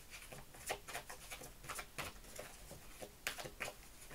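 A deck of oracle cards being shuffled by hand: a run of soft, irregular card clicks and flicks, several a second.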